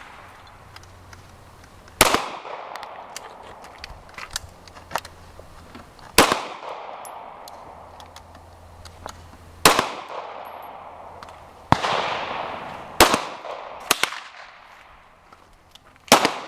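Gunshots from firearms being fired at a shooting range. There are about seven loud shots, spaced one to four seconds apart, each with a long echoing tail, and fainter shots from elsewhere on the range in between.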